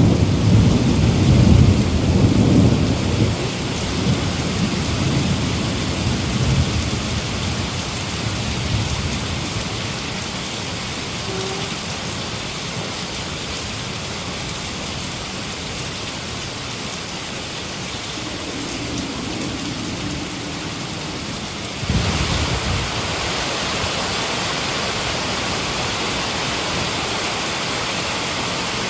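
Heavy rain falling steadily, with a long rolling rumble of thunder that fades away over the first several seconds. About 22 seconds in, the sound switches abruptly to a brighter, even hiss of rain.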